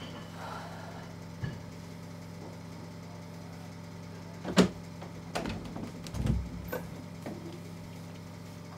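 A steady low hum with a few scattered knocks and a dull thump; the loudest is a sharp knock about halfway through.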